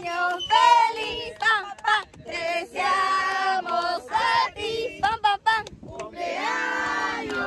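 A small group of family voices singing a birthday song in Spanish, a young girl's voice the most prominent, in short phrases.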